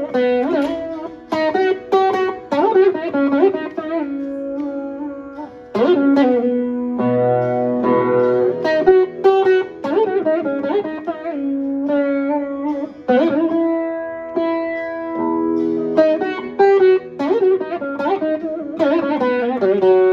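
Saraswati veena played in Carnatic style: plucked notes that bend and slide in pitch, each ringing and fading before the next pluck.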